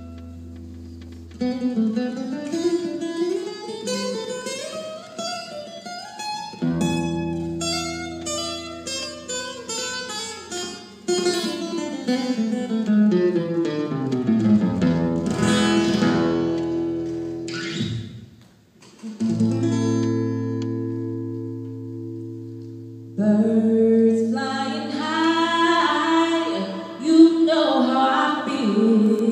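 Live acoustic music in a flamenco style: acoustic guitar playing flowing runs of plucked notes that climb and fall, with long held low notes in the middle and a fuller, denser passage near the end.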